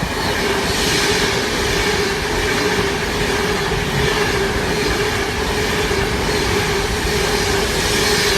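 Model train running on the layout's track: a steady electric motor whine over the rumble of wheels on the rails.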